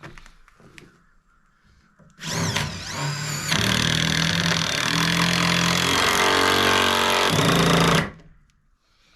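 Power drill driving a screw with a square-drive bit into framing lumber. The motor whines up about two seconds in, runs steadily and loudly for about six seconds, and stops abruptly.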